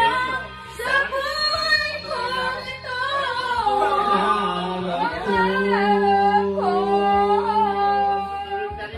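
Karaoke singing through a handheld microphone and speaker over a backing track, with one long held note from about five seconds in until near the end.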